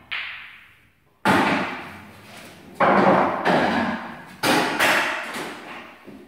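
Pool cue tip striking the cue ball and a sharp click as it hits the red ball. Then four loud knocks, each trailing off in a rolling rumble, as the potted ball drops into the pocket and runs through the inside of the table.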